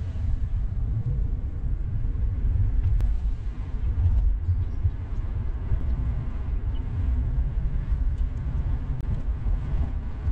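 Low, uneven rumble of road and wind noise from a Honda Fit e:HEV hybrid driving along at a steady speed.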